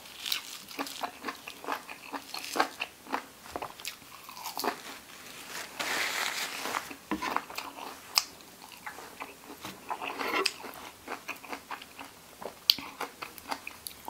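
Close-up chewing of crunchy pork ear and lettuce: a run of short, crisp crunches.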